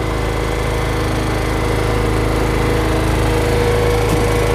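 An engine running steadily at an even speed: a low drone with a few steady tones riding above it.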